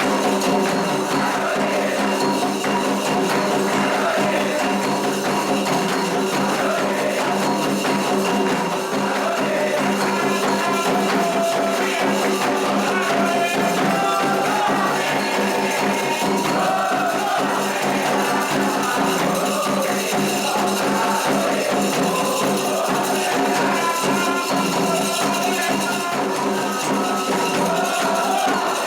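Candomblé ritual music: atabaque drums and an agogô bell keeping a fast, steady rhythm, with singing voices over it.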